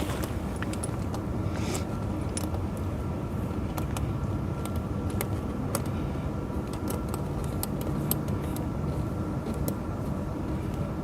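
Tractor engine idling steadily while steel tire-chain links clink and rattle in short, scattered clicks as the chain is handled and fitted.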